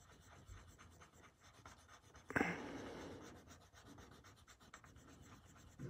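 Faint scratching of a pencil on paper as a small shape is shaded in, loudest for about a second just before the middle.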